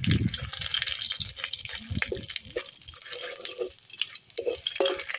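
Whole spices (panch phoron, bay leaf and dried red chilli) sizzling in hot oil in a metal kadai, stirred with a spatula that clicks and scrapes against the pan. There is a low thump right at the start.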